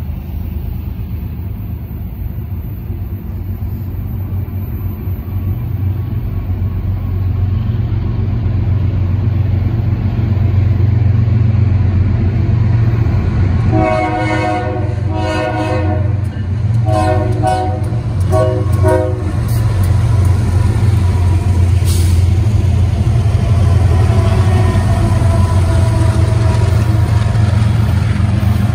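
An approaching freight train's diesel locomotives rumble, growing louder as they near. Partway through, the multi-chime air horn sounds four blasts in quick succession.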